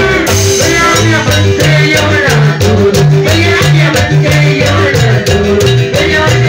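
Loud Andean zapateo dance music from a live band: a repeating bass line and percussion keeping a steady beat, with a sliding melody line on top.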